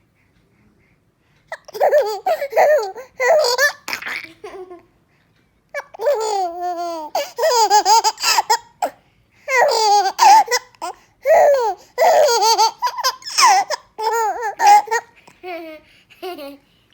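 A baby laughing in repeated high-pitched bouts, starting about a second and a half in, with a short break partway through.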